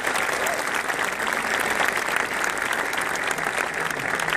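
A large crowd applauding steadily, a dense patter of many hands clapping.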